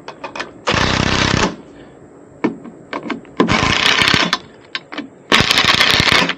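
Three bursts of rapid mechanical rattling, about a second each, with scattered sharp clicks and knocks between them, from hardware being worked on at the antenna mount.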